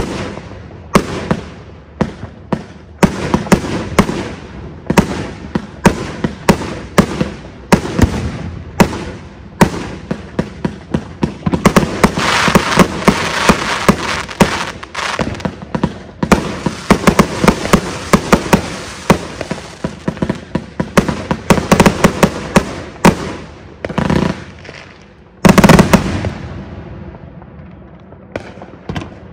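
Aerial fireworks going off in a rapid series of sharp bangs. There is a dense stretch of crackling bursts in the middle and one especially loud blast near the end, after which the display dies away.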